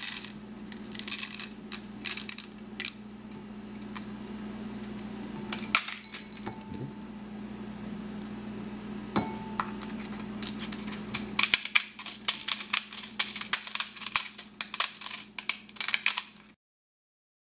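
3D-printed burr coffee grinder turned by hand, crunching coffee beans: rapid clicking and crackling in flurries, dense again in the last few seconds, then cutting off suddenly.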